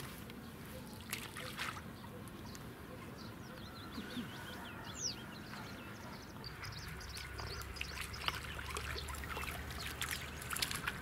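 Water trickling and lapping among reeds, with small birds chirping throughout. Near the end a hooked crucian carp splashes at the surface as it is reeled in.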